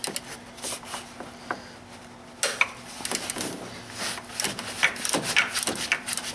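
Hand ratchet with an E14 socket working the central bolt of a BMW N52 serpentine-belt tensioner: irregular clicks and metal knocks, sparse at first and coming thick and fast from about halfway through.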